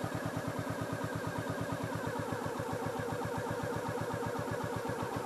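Royal Enfield Meteor 350's single-cylinder engine idling with a steady, even beat, in which the rider hears a slight knocking.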